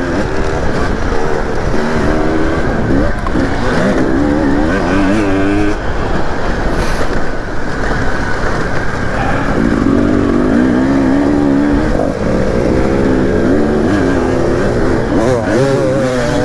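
Motocross dirt bike engine revving hard on the track, its pitch climbing and dropping again and again as the rider accelerates and shifts gears.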